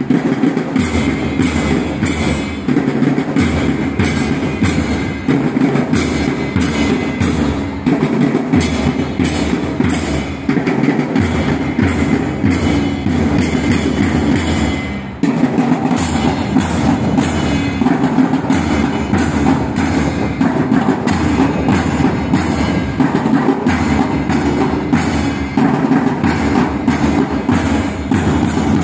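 Young Pioneer drum corps snare drums beating a steady marching rhythm for the flag salute, with a brief break about halfway through.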